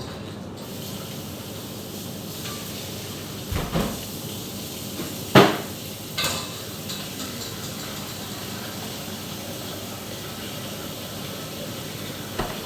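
Pots and utensils knocking and clinking a few times, with one louder knock about five seconds in, over a steady hiss.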